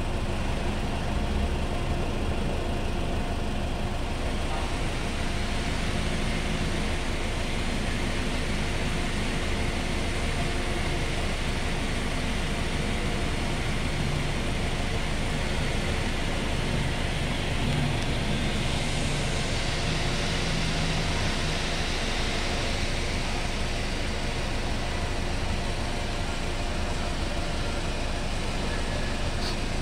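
A small cab-over truck's engine idling steadily while parked.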